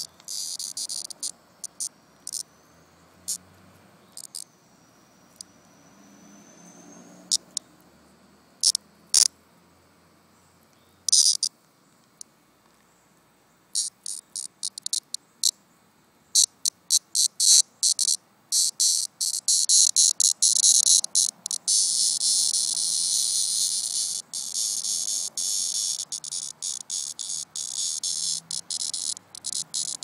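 A cicada held between fingers buzzing in short, stuttering high-pitched bursts. The bursts are sparse at first, come faster from about halfway through, and merge into a near-continuous buzz with brief breaks in the last third. The insect has fallen from its tree and is near the end of its life.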